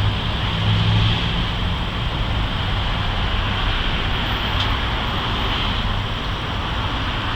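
Steady machine hum with a hiss, its low hum strongest in the first two seconds, and a faint tick about halfway through.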